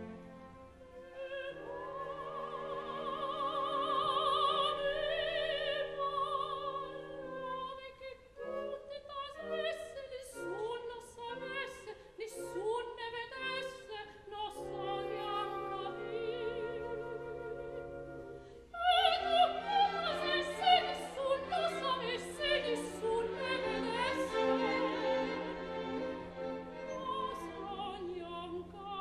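Opera singing with orchestral accompaniment: a singer holds wavering, vibrato notes over sustained strings, and about two-thirds of the way through the music grows louder and busier.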